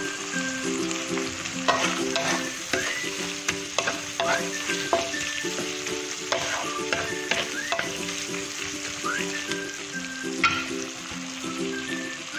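Shrimp and tuna sizzling in hot oil in a wok while a wooden spatula stirs them, with scattered scrapes and clacks of the spatula against the pan. A tune of steady notes plays softly underneath.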